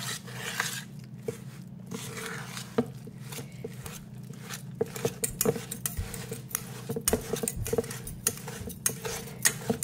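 A utensil stirring seitan dough of vital wheat gluten and tomato sauce in a stainless steel mixing bowl, with frequent irregular clinks and scrapes against the bowl.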